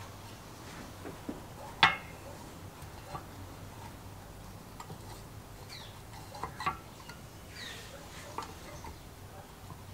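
Light metallic clicks and ticks as the coiled steel recoil spring of a Robin EC17 starter is worked into its housing with locking pliers, with one sharper click about two seconds in.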